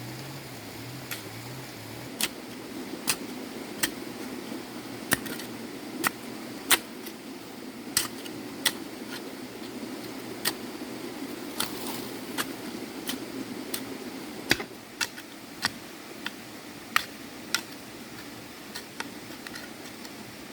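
Sharp clicks or taps at an irregular pace, roughly one a second, over a steady low hum that drops away about two-thirds of the way through.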